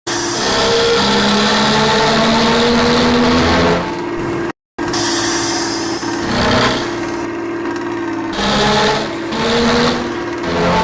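Engine revving through a loud exhaust with a snoring, rasping note, the revs swelling up and dropping back several times. The sound cuts out completely for a moment about halfway through.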